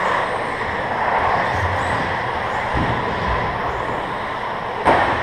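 Several 1/10-scale RC stadium trucks racing on an indoor carpet track: a steady whir of motors and tyres, with one sharp knock near the end.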